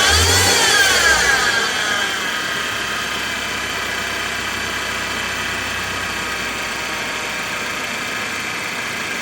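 BMW N20 turbo four-cylinder engine briefly revved, its pitch rising and then falling back to a steady idle over the first two seconds. A steady high whine carries on through the idle, the sound of a bad pulley bearing on the accessory belt drive.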